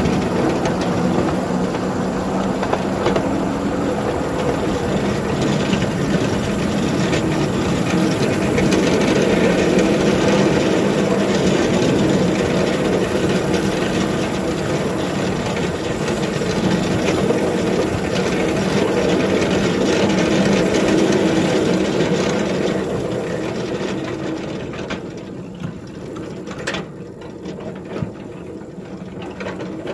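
A 7½-inch gauge ride-on locomotive running steadily along snowy track, pushing a Russell snowplow. The running sound eases off about three-quarters of the way through, and there is a single sharp click near the end.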